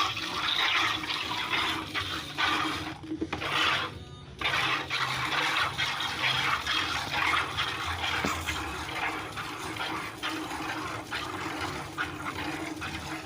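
Cow being milked by hand: quick alternating squirts of milk streaming into a bucket, going steadily with two short breaks about three and four seconds in.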